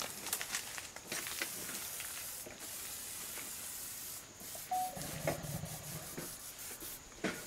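Aerosol can of purple antiseptic wound spray hissing in long bursts on an elephant's hide, with a brief break about two and a half seconds in. It stops about four seconds in, followed by a few short squirts.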